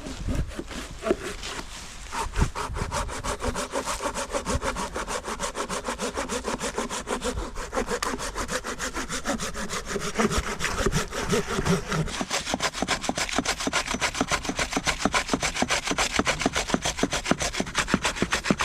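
Hand saw cutting through wood with fast, even back-and-forth strokes, several a second, starting about two seconds in.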